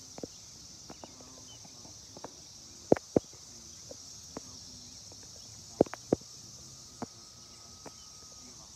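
Steady high-pitched drone of a periodical cicada chorus (Brood X). Two pairs of sharp close knocks cut through it, about three and six seconds in.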